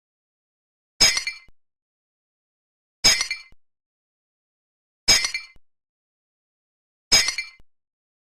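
Firework sound effect looped: a short sharp crackling burst that dies away in about half a second, repeated identically four times, about every two seconds.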